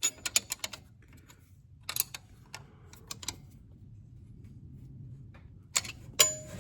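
Metal hand tools clicking and clinking on the valve rocker arms of a Case 770 diesel engine during valve clearance adjustment: a quick run of light clicks at the start, a few more about two seconds in, and a sharper clink with a short metallic ring near the end.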